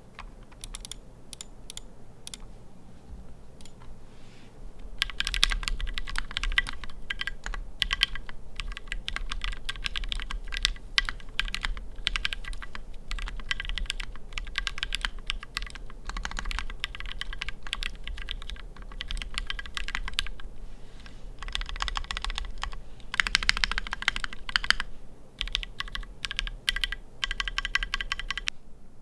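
Typing on a modded custom 60% mechanical keyboard (KBDFans Tofu60 aluminium case, Gateron Milky Yellow linear switches, PE foam and tape mods): a few scattered keystrokes at first, then fast continuous typing from about five seconds in, with short pauses.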